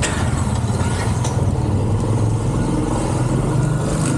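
Small motorbike engine running while riding along, a steady hum whose pitch rises and falls a little with speed.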